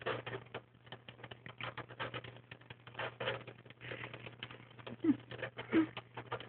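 Pet hamster gnawing on the wire bars of its cage: quick, irregular clusters of sharp clicking and rattling of teeth on metal wire, over a steady low hum. Two short rising squeaks come about five and six seconds in.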